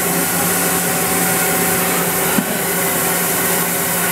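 Daewoo Puma 160 GT CNC lathe spindle running at speed with its collet chuck: a steady machine whine of several held tones over a hiss. One brief knock a little past halfway.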